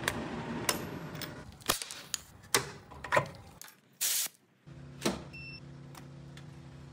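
Clicks and knocks of buttons, a key switch and a brass hose fitting being handled on a Fortune Laser FL-C2000 continuous wave laser cleaner. About two-thirds of the way through, the machine's steady electrical hum starts and runs on, with a short electronic beep.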